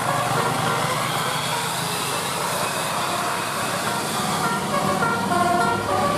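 Bus 'telolet' multi-tone horn playing a melody of short stepped notes at the start. The melody breaks off, leaving only steady vehicle noise, then starts up again about five seconds in.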